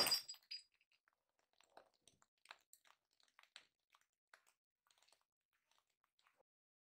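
Tail end of a glass bottle bursting under an air-rifle pellet hit: a sharp crack dying away within half a second, with a second smaller crack. Then faint scattered ticks and crackles for a few seconds as the spilled liquid and shards settle.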